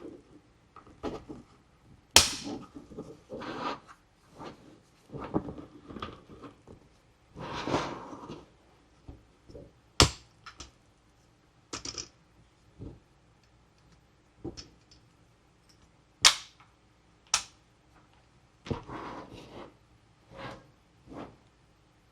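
Plastic toy packaging being handled: irregular rustling and crinkling broken by sharp plastic snaps and clicks, the loudest four of them standing out singly.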